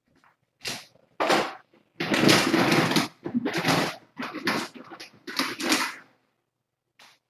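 Rattling and rustling handling noise in a string of bursts, heaviest about two to three seconds in and dying away about six seconds in.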